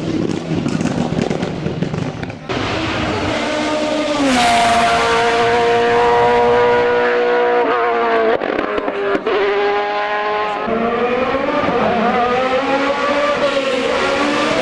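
Hill-climb race cars at full throttle: one passes close and moves away in the first couple of seconds. From about four seconds in, another race car's high-revving engine is heard coming up the hill, its pitch dropping at several gear changes with sharp cracks around the shifts, then rising again toward the end.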